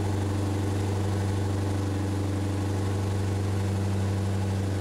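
Lexus IS F's 5.0-litre V8 idling steadily.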